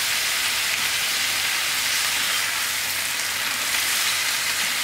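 Chicken giblets frying in oil in a pan, a steady sizzle that holds even throughout.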